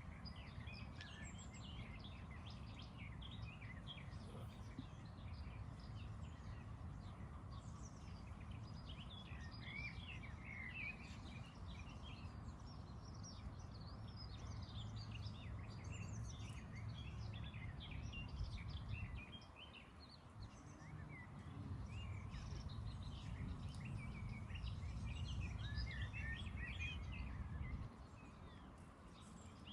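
Several birds chirping and singing in short, overlapping phrases, over a low rumble that dips twice, around twenty seconds in and near the end.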